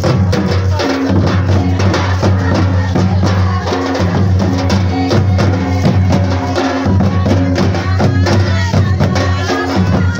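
Santali Sohrai dance music: rapid, dense drum and clacking percussion over a steady, deep bass line.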